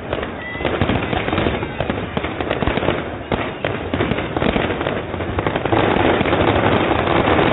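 Fireworks going off in quick succession: a dense, continuous run of bangs and crackles that gets louder about two thirds of the way in.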